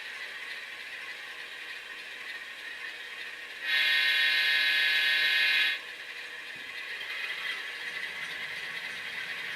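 Tsunami sound decoder in an Athearn U50 HO-scale model locomotive playing simulated twin GE diesel engine running sounds through its small speaker. About four seconds in comes one steady, louder air-horn blast lasting about two seconds.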